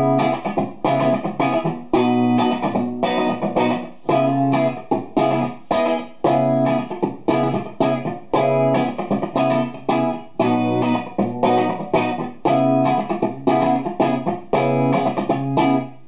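Electric guitar, a Gibson Les Paul '54 reissue goldtop on its bridge P90 pickup, played through an amplifier: a riff of struck chords and picked notes repeated over and over.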